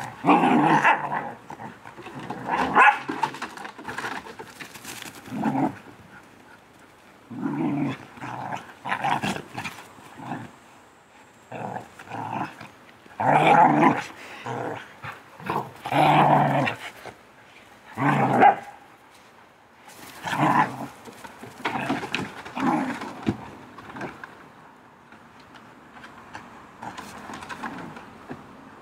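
Border collies and another dog play-fighting, growling and barking in many short, irregular bursts, some of them loud; the noise dies down over the last few seconds.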